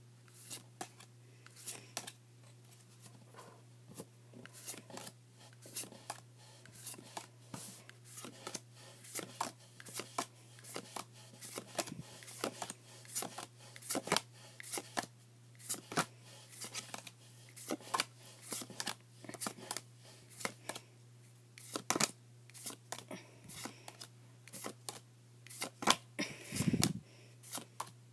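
Magic: The Gathering cards being slid off the front of a hand-held stack one at a time, a steady run of irregular crisp clicks and snaps. A louder, deeper knock comes near the end, and a steady low hum runs underneath.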